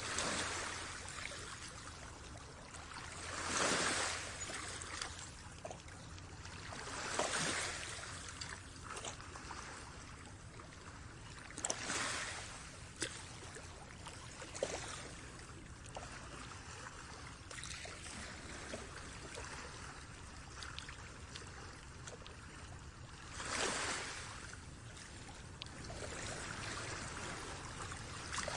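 Shallow water trickling and sloshing, with several louder swells of water noise and a few small clicks.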